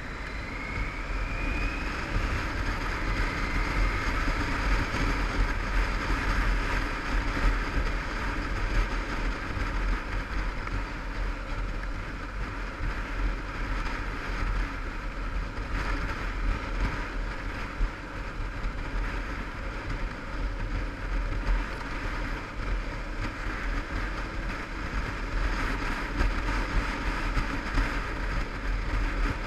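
Yamaha TDM850 parallel-twin motorcycle engine riding through town, its pitch rising as it pulls away in the first couple of seconds, then running steadily under light throttle. Wind buffets the microphone throughout.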